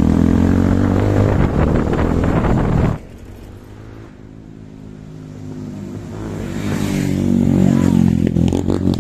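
Motorcycle engine running at road speed, heard loud from on board the bike with wind noise. About three seconds in it cuts away to a motorcycle heard from the roadside, faint at first and growing steadily louder as it approaches.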